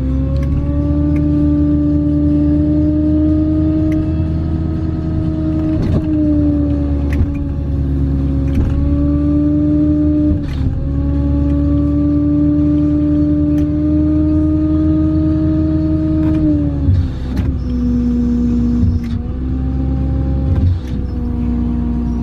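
2015 GMC Sierra 3500HD wrecker with its 6.6 Duramax diesel driving along a road, heard from inside the cab. The engine and drivetrain make a steady whine that climbs slowly and drops back three times, about 6, 10 and 16 seconds in, with a few brief knocks and rattles.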